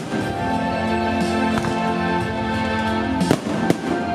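Aerial firework shells bursting with sharp bangs: one at the start, a fainter one after about a second and a half, and two close together about three seconds in. Music with held notes plays under them.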